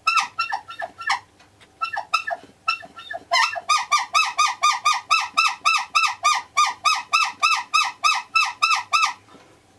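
Repaired rubber-bulb horn honked by squeezing its bulb, now working: a few separate honks, then a quick even run of about four honks a second. Each honk has a reedy, squeaky tone that bends slightly in pitch.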